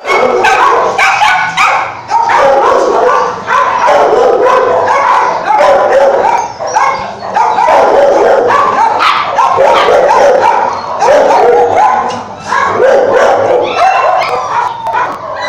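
Many kennelled shelter dogs barking and yelping at once: a loud, unbroken chorus of overlapping barks.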